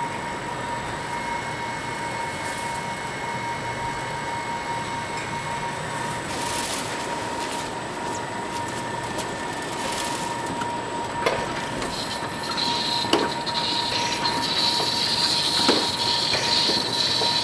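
Steady mechanical drone of dairy barn machinery with a constant whine. A higher hiss comes in about twelve seconds in, and a few sharp metallic clanks sound near the end.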